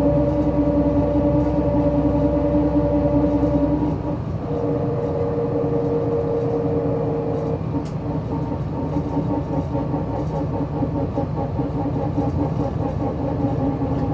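MAN SL202 CNG city bus running under way, a steady engine and drivetrain note. About four seconds in the note shifts and gets a little quieter, then settles at a new steady pitch, with a single short click a few seconds later.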